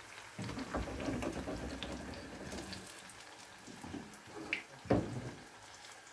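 Water running, starting about half a second in and slowly fading, with a few sharp knocks later on, the loudest near the end.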